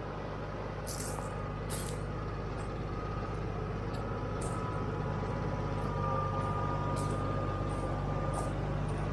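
Diesel engine of a New Holland machine running steadily at a constant speed, with a few brief light clicks and rattles every second or two.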